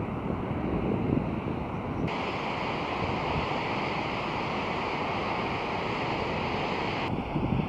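Ocean surf and wind buffeting the microphone, a steady rushing noise that changes abruptly about two seconds in, turning brighter, and again near the end.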